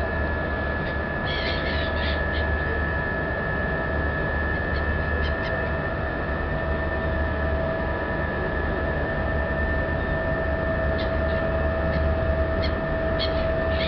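Car ferry's engines running steadily, a constant low hum with a steady whine over it. Seagulls squawk briefly several times, once about a second and a half in, once around five seconds and a few times near the end.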